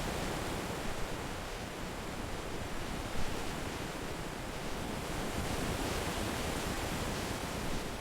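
Ocean surf washing steadily, an even hiss of waves breaking on the shore.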